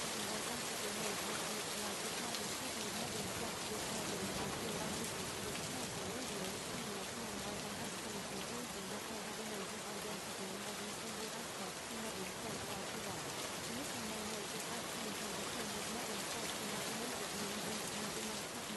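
Steady recorded rain, an even hiss of falling rain, with a faint wavering low sound beneath it.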